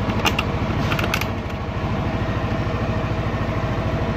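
Yamaha NMAX scooter's single-cylinder engine idling steadily, with a few light clicks in the first second or so as a panel screw is fitted back in.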